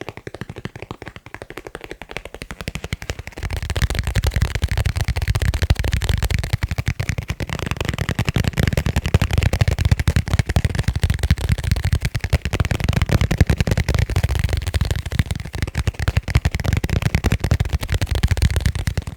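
Fast finger tapping on leather cases, a dense run of quick taps. About three and a half seconds in, the taps take on a deeper, fuller thud.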